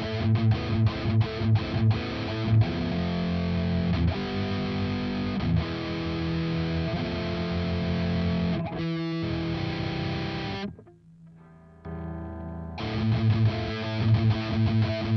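Electric guitar through a LY-ROCK BE-OD Deluxe overdrive pedal, a heavily distorted tone: a fast palm-muted chugging riff, then sustained chords ringing out. About eleven seconds in the sound drops suddenly to a faint held note for a couple of seconds before the chugging riff comes back.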